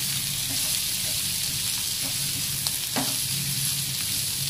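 Diced onion, carrot and sweet corn sautéing in a nonstick frying pan: a steady sizzle while a wooden spatula stirs them, with one sharp knock about three seconds in.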